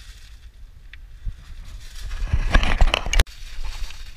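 Thin plastic carrier bag crinkling and rustling as hands handle it, loudest for about a second from around two seconds in, then cutting off suddenly. Softer rustle and handling noise otherwise.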